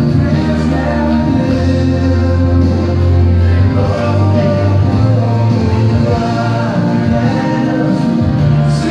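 Song with singing over a steady, heavy bass line.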